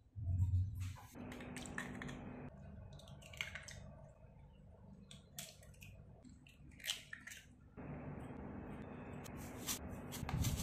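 Kitchen prep handling sounds: a low thump in the first second, then scattered sharp taps and clicks as eggs are cracked open and dropped into a glass bowl.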